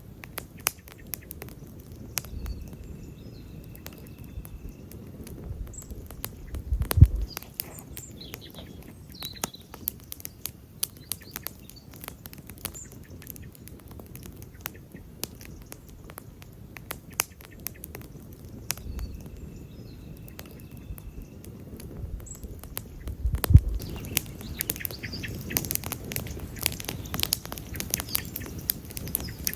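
Wood campfire crackling, with a steady stream of small sharp snaps and two louder pops, one about a quarter of the way in and one near three quarters, over a low rumble of the flames. Faint high chirps sound in the background.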